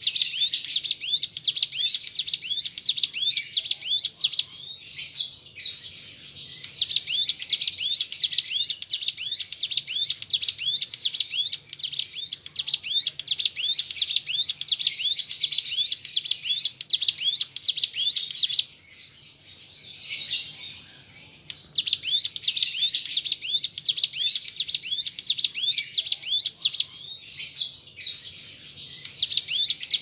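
Ciblek gunung, a prinia, singing a long, fast run of high, repeated chirps, with a short break about two-thirds of the way through before it starts again.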